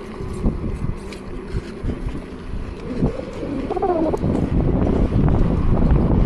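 Wind buffeting the microphone and low rumble with scattered knocks from riding an electric unicycle over a rough trail, growing louder after about three seconds. A short wavering pitched call sounds about four seconds in.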